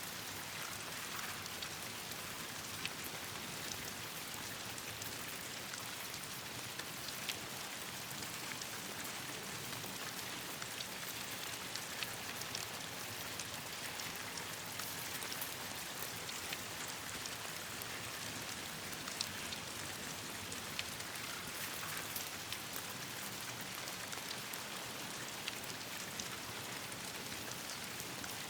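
Steady rain falling, with scattered sharp ticks and pops over the even hiss.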